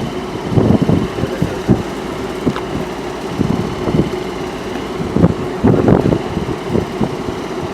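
Electric train moving through the station: a steady hum with one constant tone, broken by irregular low knocks.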